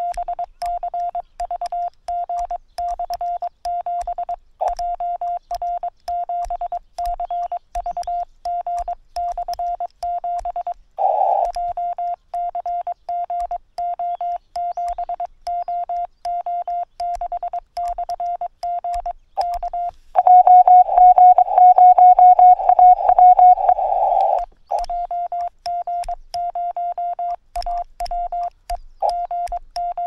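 Morse code (CW) from a Yaesu FT-818ND amateur radio transceiver: a single steady mid-pitched beep keyed on and off in dits and dahs. About twenty seconds in a louder, slightly higher tone keys faster for about four seconds before the first tone resumes.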